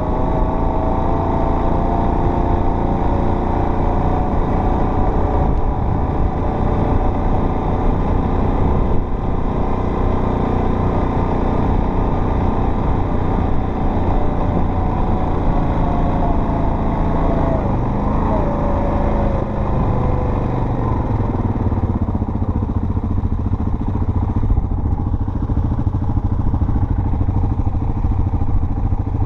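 Off-road vehicle's engine running steadily under way on a dirt trail. Its pitch wavers, drops about two-thirds of the way through, then settles lower.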